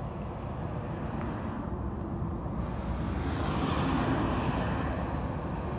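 A heavy vehicle passing on the road: its noise swells to a peak about four seconds in and then eases off, over a steady low rumble.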